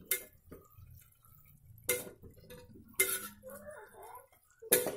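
A metal spoon knocking and scraping against the sides of an aluminium pressure cooker while stirring a thick chicken masala. Four sharp clinks, spaced one to two seconds apart, over quiet scraping.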